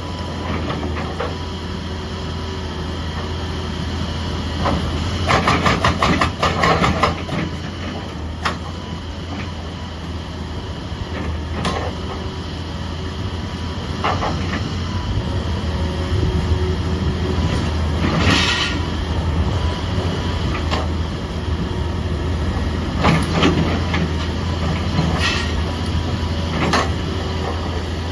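Excavator engine running steadily, with a short run of rapid knocking about five seconds in and single sharp clanks scattered through the rest.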